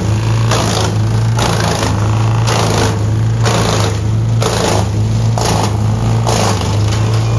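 Timberwolf TW160PH wood chipper running at speed, its feed rollers drawing in short logs and chipping them. Over the steady engine hum, rushes of chipping noise come a little under once a second as the wood is cut and the chips are blown out of the chute.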